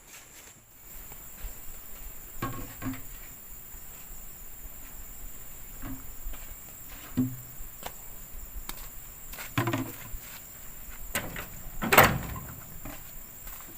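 Steady high insect chirring, with a handful of irregularly spaced dull thuds or knocks, the loudest near the end.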